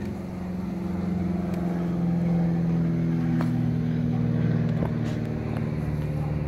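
A motor vehicle's engine running, a low steady hum that grows louder over the first couple of seconds and drifts slightly lower in pitch.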